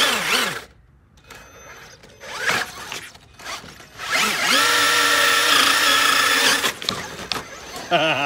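Axial SCX6 RC crawler's brushless motor and gear drivetrain whining: a few short rising and falling whines with throttle blips, then a steady whine for about two and a half seconds in the middle.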